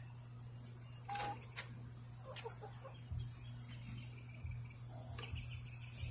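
Chickens in the pen clucking faintly: a short held call about a second in, then a few low clucks. A sharp click comes about a second and a half in, over a steady low hum.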